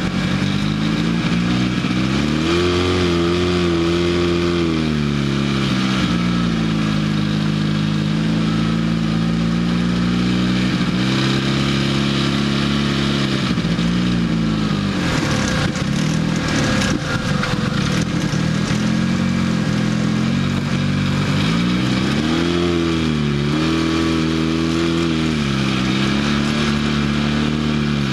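Engine of an off-road dune vehicle driving over sand, running under load, with its pitch rising and falling as it revs up and eases off several times. About halfway through, a rougher, noisier rushing sound takes over for a few seconds.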